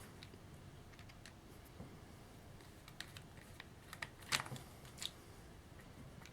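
A few faint, light clicks and taps of small hard parts being handled, the loudest a little past the middle.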